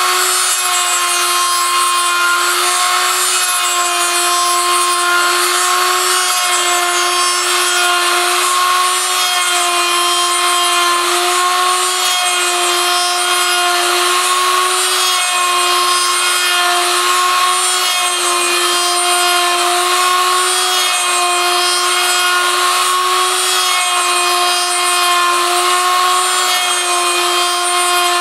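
Homemade copy milling machine running, its cutter milling a wooden lure blank: a steady motor whine over the hiss of cutting wood, wavering slightly every few seconds.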